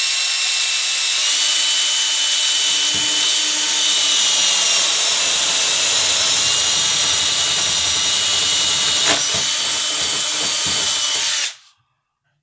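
Cordless drill running steadily as its bit bores down through the layout's foam board to make a wire hole. Its motor whine steps up slightly in pitch about a second in and cuts off abruptly near the end.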